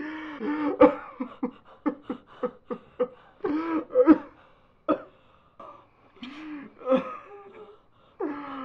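Anguished crying: a string of short, broken sobs and cries with sharp, catching gasps between them.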